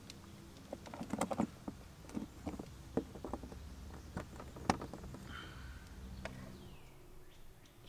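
Faint scattered plastic clicks and taps as a two-pin circular plug is handled and pushed into an RV's Furrion solar port. The sharpest click comes a little under five seconds in.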